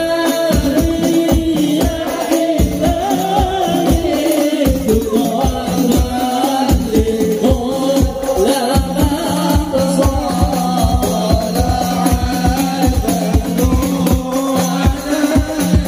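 Devotional sholawat singing, men's voices led by one amplified voice through a microphone and loudspeakers, over hadrah frame drums (rebana) beaten by hand in a quick, steady rhythm. It is the standing (mahallul qiyam) part of a maulid recitation.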